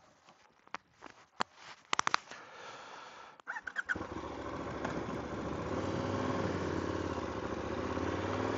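Sharp clicks and taps of a motorcycle helmet's visor being handled, then, about four seconds in, a KTM motorcycle engine starts and runs, growing steadily louder as the bike moves off.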